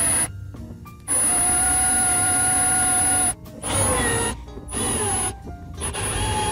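Cordless drill spinning a larger bit against an aluminium door-frame tube, countersinking freshly drilled rivet holes, in a series of trigger pulls. The motor whines steadily for about two seconds, then runs in three shorter bursts, the pitch dropping as it stops each time.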